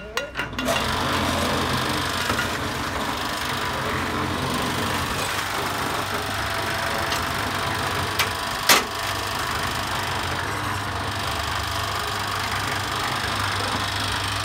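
Small electric mortar mixer starting up and running steadily, its drum tumbling dry sand and cement with a steady hiss over a low motor hum. A sharp knock stands out about nine seconds in.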